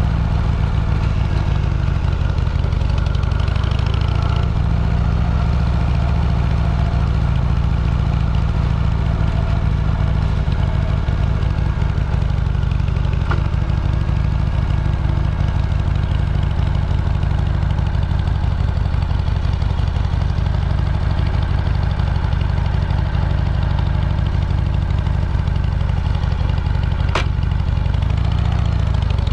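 A vehicle engine running steadily under a heavy low rumble, with a short click about 13 seconds in and another near the end.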